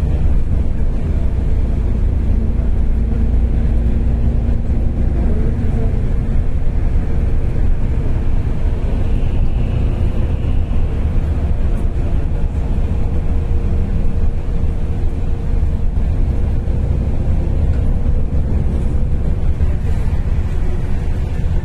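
A bus in motion heard from inside the passenger cabin: a steady low rumble of engine and road noise with a faint steady hum above it.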